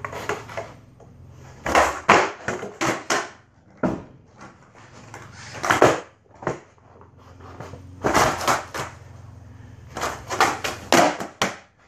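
Skateboard clacking and clattering on a concrete floor during freestyle tricks: sharp knocks of the deck, tail and wheels hitting the floor in quick clusters, with short pauses between tricks. The knocks echo in a small room.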